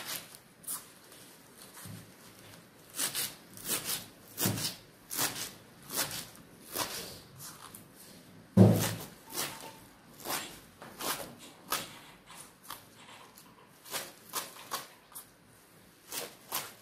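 Kitchen knife chopping a pile of fresh mallow leaves on a wooden cutting board: irregular runs of short taps, a few a second, with one heavier knock about halfway through.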